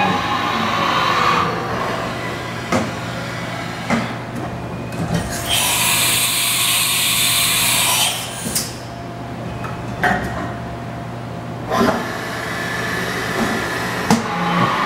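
Haas VF-5 vertical machining center going through an automatic tool change over a steady low machine hum. The umbrella tool carousel moves and indexes with several separate clunks. In the middle a loud hiss of compressed air lasts about two and a half seconds.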